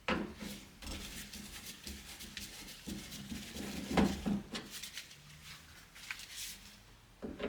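Scattered clicks, rattles and rubbing from hands and a tool working on the handle bolts inside a van's sliding door, with one sharper knock about four seconds in.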